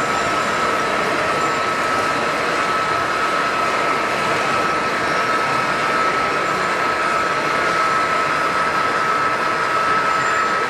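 Three-rail model trains running on a layout: a steady rolling rumble with a constant tone throughout.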